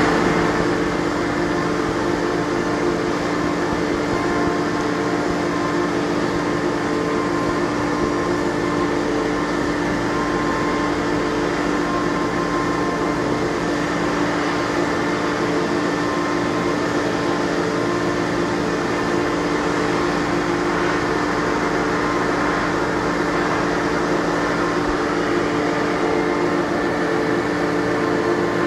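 Hermle B300 CNC machining centre milling a metal block under flood coolant, its spindle and cutter running steadily with a hum of several steady tones over a noisy wash of cutting and coolant spray.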